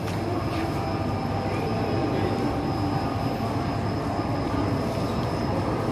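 Steady background hum and rumble of an indoor shopping-mall concourse, with no single event standing out.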